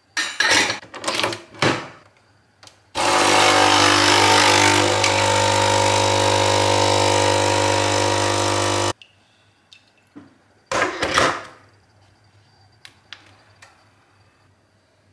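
Nespresso capsule coffee machine: a few knocks and clicks as it is readied, then its pump runs with a loud steady hum for about six seconds while the coffee pours, and cuts off suddenly. Another pair of clicks follows a couple of seconds later.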